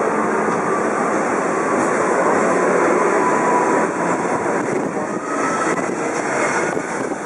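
A metro train pulling out of the station: a steady rush of wheels on rails and running gear, with a faint rising whine from its traction motors. It is loudest a few seconds in as the cars pass, then eases off.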